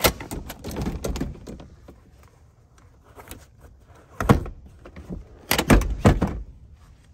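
Rear seat of a Mitsubishi Outlander being released and folded: a clack as the lever under the cushion is pulled, rustling and rattling as the seat moves, then loud clunks about four seconds in and again from about five and a half to six seconds as the seat mechanism drops and locks.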